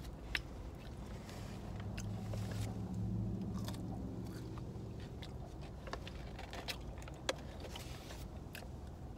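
A person chewing cheese fries dipped in cheese sauce, with scattered small mouth clicks. A low steady hum rises for a few seconds from about a second and a half in.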